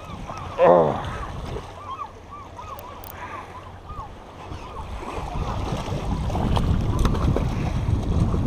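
Abu Garcia Revo baitcasting reel being cranked against a hooked salmon, its gears whining in a rhythmic pulse about three times a second for the first two seconds. From about five seconds in, wind rumbling on the microphone grows louder.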